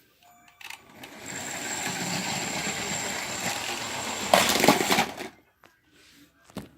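Lego train's electric motor running along the track with a steady high whine, then a burst of loud clattering impacts a little over four seconds in as it crashes, plastic pieces rattling, and a single click near the end.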